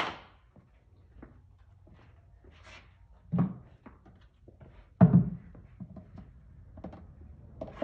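Scattered knocks and thumps of objects handled and moved on a hard floor, two heavier thumps about three and a half and five seconds in, the one at five the loudest.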